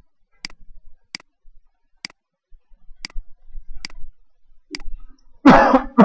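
Six sharp clicks about a second apart, from a computer mouse or laptop touchpad button, then a loud cough near the end.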